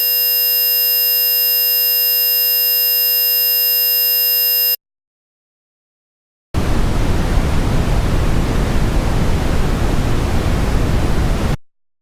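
A steady, very high-pitched 13 kHz square-wave tone that stops abruptly a little under five seconds in. After a short silence comes brown noise, an even rushing hiss weighted toward the low end, which stops shortly before the end.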